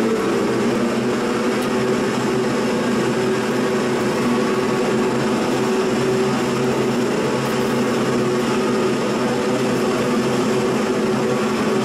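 MXJ218 log crusher (sawdust making machine), driven by a large electric motor, running steadily with no log being fed: a loud, even mechanical hum with several steady low tones.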